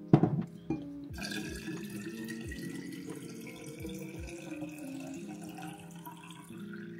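Water running from a tap into a container, the pour's pitch rising steadily as it fills, after a sharp knock at the start.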